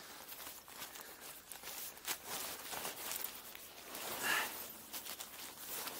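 Irregular crunching and scuffing footsteps of boots on snow and rock, mixed with clothing and wingsuit fabric rustling close to a helmet-mounted microphone, with a louder rasp about four seconds in.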